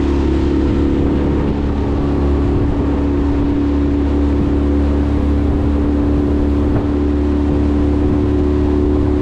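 Outboard motor of a small aluminium bass boat running steadily at cruising speed, with a constant hum and low rumble over the hiss of water and wind.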